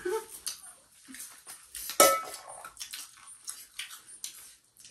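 Scattered clinks of cutlery and dishes, with one sharp clink about two seconds in that rings briefly.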